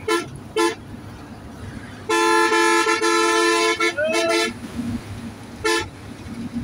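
A two-note vehicle horn honking on a moving road: two short toots, then one long blast of about a second and a half, a few quick toots, and one more short toot near the end, over low road rumble.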